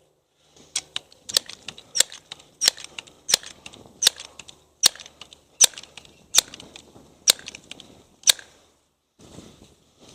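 Pellet pistol being worked by hand: a run of about a dozen sharp clicks, evenly spaced at about one and a half a second, then a few softer clicks near the end.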